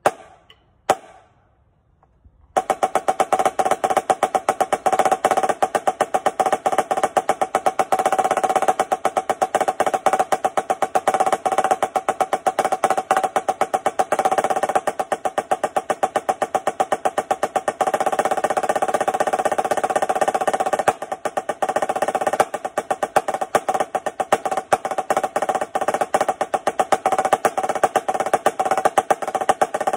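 Marching snare drum played with sticks: two sharp clicks about a second apart, then, from about two and a half seconds in, a continuous roll exercise of dense, even strokes over the drum's ringing tone.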